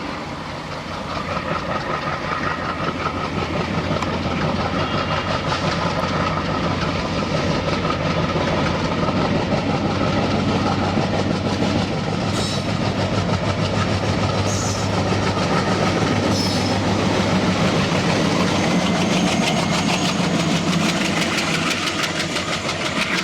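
Diesel-hauled train running along the track: a steady rumble and rapid rattle of wheels on rails, over a low engine drone.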